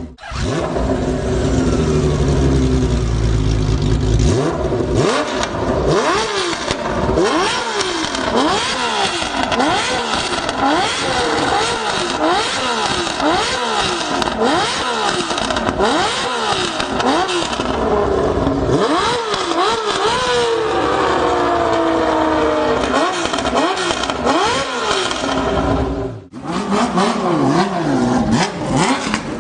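Honda CBX1050's inline-six engine idling low for a few seconds, then revved up and down again and again in quick blips about once a second, with a few longer falls in pitch as the revs drop back.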